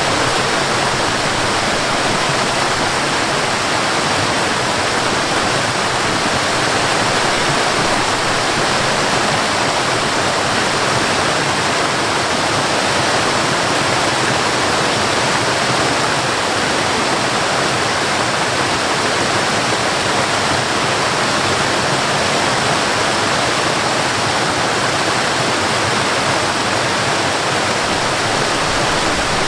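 Cascading water: a small waterfall pouring steadily, a constant even rush.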